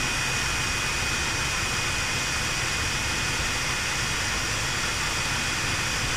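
Edge sealing machine for PP bubble guard sheet running steadily: an even mechanical rush and hum with a thin, high, constant whine through it.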